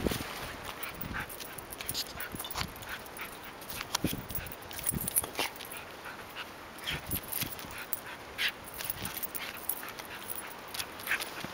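Husky whimpering and making short yips, among many short crackling sounds throughout.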